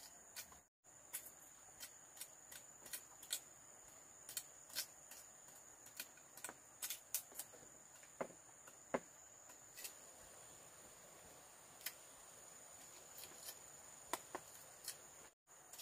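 Faint, irregular clicks and knocks, about one or two a second, over a steady high-pitched hum.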